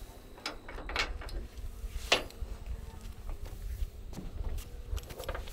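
Scattered clicks and knocks as the strap and metal hook of an electric come-along are handled and pulled out; the loudest is a sharp knock about two seconds in. The come-along's motor is not running.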